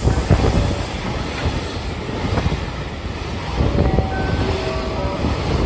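Container wagons of a freight train passing close at speed, a steady rumble of wheels clattering over the rails, with a few brief faint squeals.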